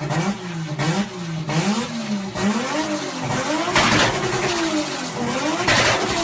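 Turbocharged car engine revved in repeated throttle blips, its pitch rising and falling again and again, with hissy chattering turbo flutter (compressor surge) bursting out as the throttle is lifted, loudest about 4 and 6 seconds in.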